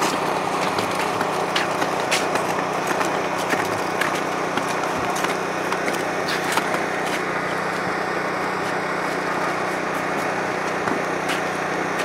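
A small engine running steadily at an even speed, with scattered light clicks and knocks over it.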